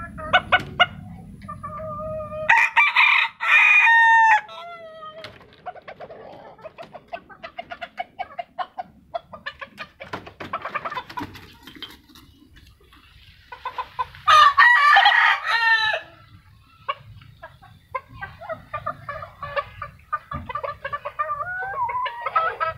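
Ayam Arab (Silver Brakel-type) rooster crowing twice, a couple of seconds in and again about halfway through. Each crow lasts about two seconds, and the first ends on a falling note. In between come many short clucks and brief chicken calls.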